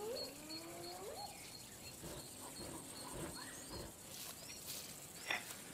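Faint wildlife sounds at a lion kill: a bird chirping in short high notes several times a second, a couple of low rising calls about a second in, and scattered soft clicks from lions feeding on the zebra carcass.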